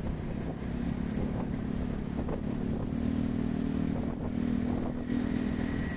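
Motorbike and scooter engines running with a steady hum in dense traffic, with wind rumbling on the microphone.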